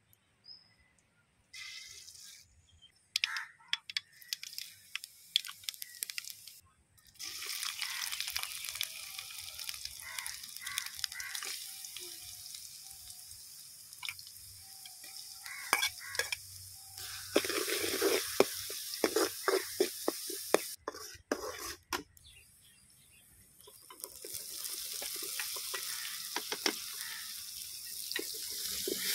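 Hot oil sizzling in an aluminium kadai as spices, then chopped onions and green chillies, are tempered for dal fry, with sharp pops and crackles. In the second half, a perforated metal ladle scrapes and stirs against the pan.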